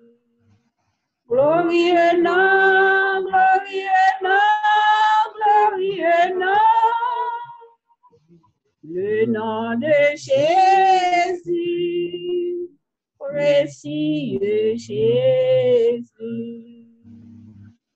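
A woman singing a hymn unaccompanied, heard over a video call, in phrases with long held notes and short pauses between them.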